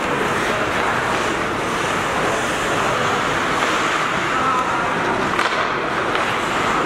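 Steady noise of an ice hockey rink during play, with a faint sharp click about five seconds in.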